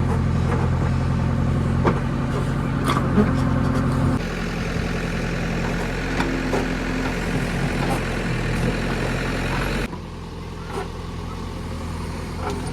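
Diesel engine of a JCB 3DX backhoe loader running steadily, with scattered knocks and clatter. The sound shifts abruptly about four seconds in and again near the end.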